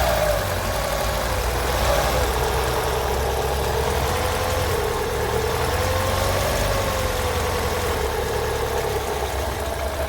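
2012 Chevrolet Aveo (Sonic) engine idling steadily with its poly-V serpentine belt removed. With the belt-driven accessories stopped, the strange knocking noise is gone, pointing to one of them as its cause.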